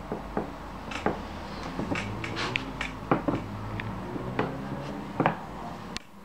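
Light, irregular clicks and knocks of a puppy tussling with a knotted rope toy, its mouth and paws on the toy and on a towel-covered surface, over a steady low hum.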